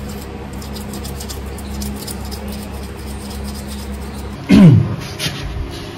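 A brush scrubbing lightly on the motorcycle: quick, soft scratching strokes over a steady low hum. About four and a half seconds in there is a short, loud squeak that falls in pitch.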